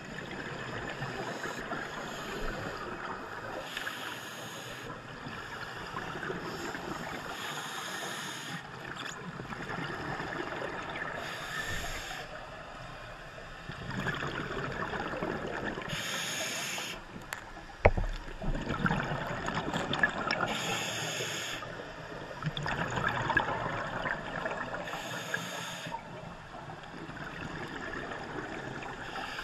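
Scuba diver breathing through a regulator underwater: a hiss on each inhalation every four seconds or so, each followed by a gurgling rush of exhaled bubbles. One sharp knock about eighteen seconds in.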